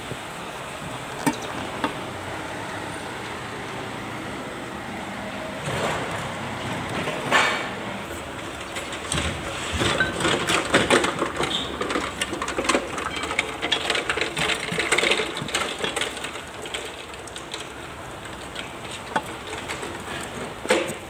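Steady workshop background noise with scattered sharp clicks, a louder clatter about seven seconds in, and a dense run of clattering knocks from about ten to sixteen seconds, like metal parts being handled.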